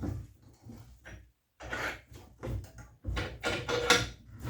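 Several short, irregular knocks and scrapes of metal being handled, with brief quiet gaps between them.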